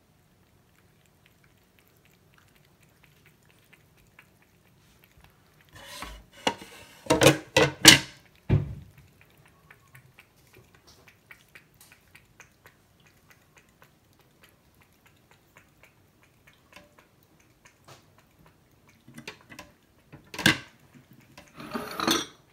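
Cat lapping water from a stainless steel bowl, a run of faint soft ticks. Two spells of louder clinking clatter break in, one about six seconds in and another near the end.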